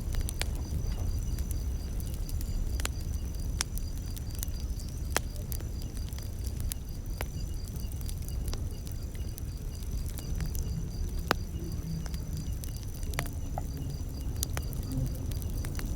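Campfire crackling: a low steady rumble of burning wood with frequent sharp pops and snaps, the loudest snap about eleven seconds in. Crickets chirp steadily in a high, even rhythm behind it.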